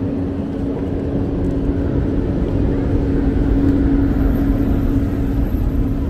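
An engine running nearby, a steady hum held at one pitch over a low rumble.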